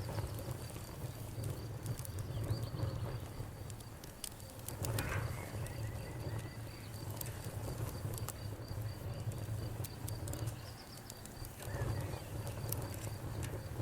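Wood fire crackling, with irregular sharp pops and snaps over a low rumble. A faint, high, rapidly pulsing trill runs steadily underneath.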